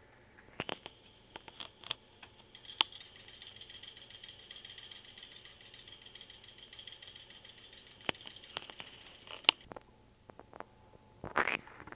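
Pet rat drinking from a cage water bottle: a rapid, steady ticking rattle of her tongue at the metal sipper tube that lasts several seconds. Scattered sharp clicks come before and after it, and a short scuffling rustle comes near the end.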